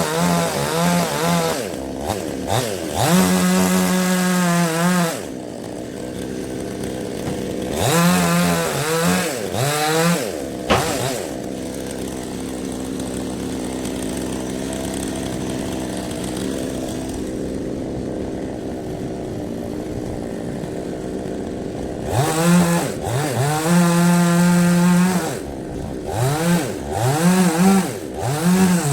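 Two-stroke chainsaw revving up and down in repeated bursts, held at full throttle for a second or two at a time, then dropping to a steady idle for about ten seconds in the middle before revving hard again.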